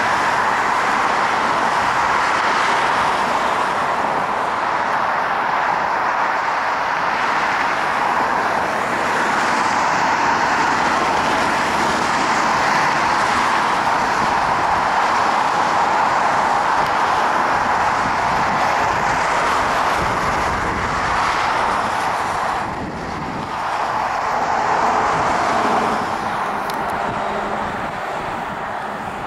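Road traffic on a wide multi-lane street: a steady wash of car tyre and engine noise from vehicles passing through a signalized intersection. It dips briefly about three-quarters of the way in and eases off a little near the end.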